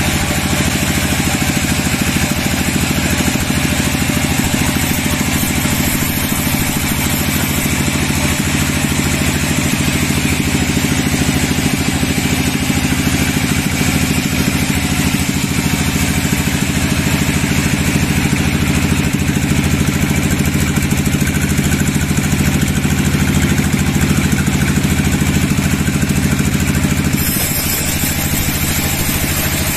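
Band sawmill running with its band blade cutting lengthwise through a dry teak log: a steady, loud machine hum with the hiss of the blade in the wood. The sound eases a little near the end as the blade nears the end of the log.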